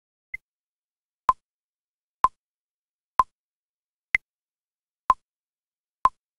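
Metronome click track counting in at about one click a second, seven clicks. The first and fifth clicks are higher in pitch, marking the first beat of each four-beat bar, before the backing orchestra enters.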